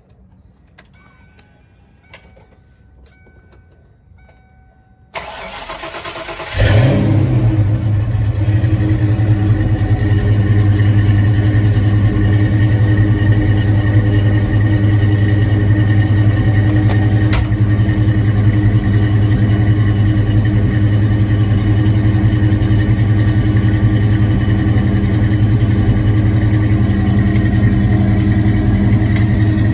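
Fox-body Ford Mustang engine cold-started. About a second of cranking is followed by the engine catching with a loud burst, then settling into a steady, even idle.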